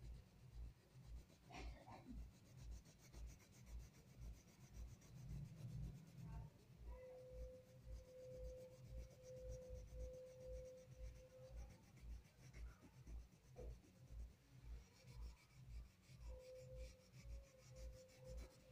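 Faint rubbing of a wax crayon on paper as an area is coloured in, in even back-and-forth strokes about two a second.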